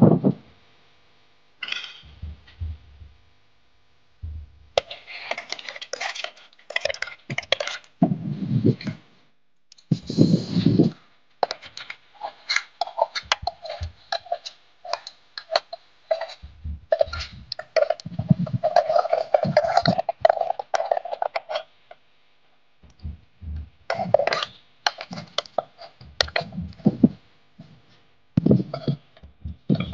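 A long metal ladle stirring and knocking against an aluminium cooking pot, in many short clinks and scrapes, with a person's voice now and then.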